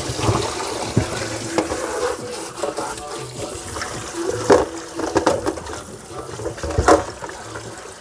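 Kitchen tap running into a sink while dirty beets are rinsed, with a few sharp knocks from the beets and hands in the sink.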